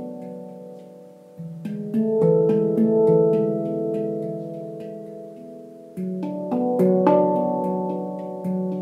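Leaf Sound Sculpture handpan tuned to C# Locrian, played with the fingers: a cluster of struck notes about a second and a half in and another about six seconds in, each note ringing on and slowly fading between the clusters.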